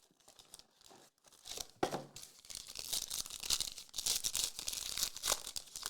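The wrapper of a Contenders Optic basketball card pack being torn open and crinkled in the hands, faint at first, then a dense crackle from about a second and a half in.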